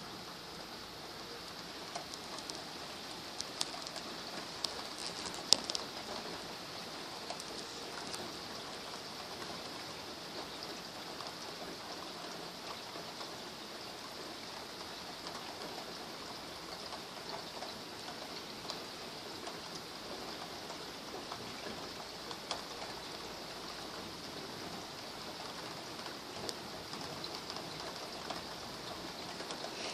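Steady rain hiss at night, with scattered sharp ticks, the loudest about five and a half seconds in.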